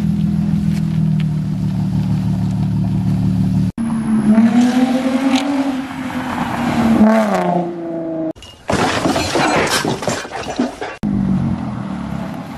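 Straight-piped Lexus IS250's 2.5-litre V6 exhaust, heard in several abruptly cut segments. It begins with a low steady drone. After a cut the car accelerates away, its pitch rising and then falling. A loud rough rasp follows, then a steady low drone again.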